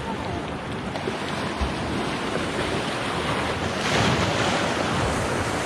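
Small waves washing and splashing over rocks at the water's edge, with wind buffeting the microphone. A wave surges in and splashes more loudly about four seconds in.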